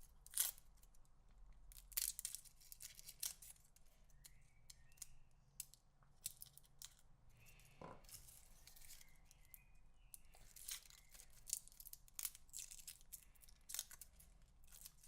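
Garlic being prepared by hand in the kitchen: short, irregular scraping and clicking strokes, some in quick clusters, with a louder one about eight seconds in.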